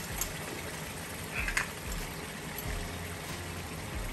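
Sliced onions and garlic sizzling steadily in oil in a frying pan, with a light knock about a second and a half in.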